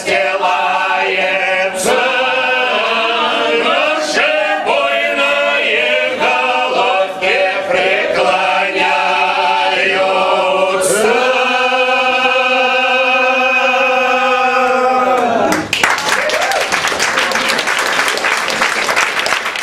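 A small group of men and women singing together without accompaniment, the song ending on a long held note. Applause breaks out about three-quarters of the way through and runs on.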